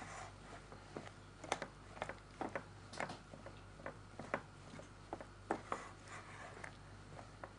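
Whisk working a stiff flour dough in a glass bowl: irregular clicks and short scrapes as the wires knock and drag against the glass.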